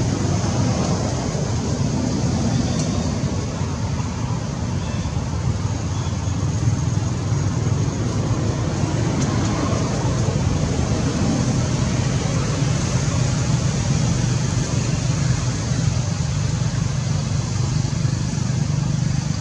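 Steady low rumbling noise with a hiss above it, unbroken throughout.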